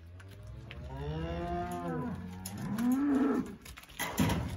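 Cattle mooing: one long, drawn-out moo that rises and falls in pitch and swells loudest near its end. About four seconds in there is a brief, sharp loud noise.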